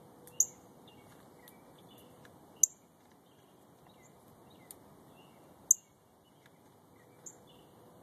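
Northern cardinal giving sharp, high chip calls: three loud single chips a couple of seconds apart, then two fainter ones near the end, over faint chirping of other birds in the background.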